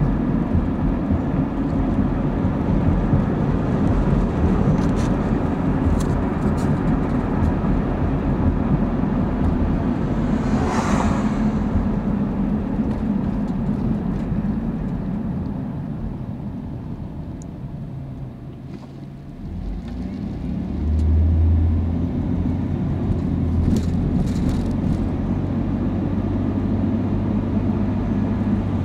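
Road and engine noise heard inside a moving car's cabin: a steady rumble of tyres and engine that fades in the middle, then comes back with a low engine drone about two-thirds of the way through. A brief hiss sounds about a third of the way in.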